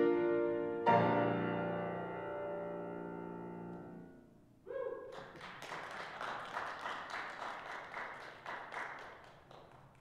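Grand piano playing the closing chords of a piece, the last chord struck about a second in and left to ring until it dies away. About halfway through, clapping starts and goes on for some five seconds before fading.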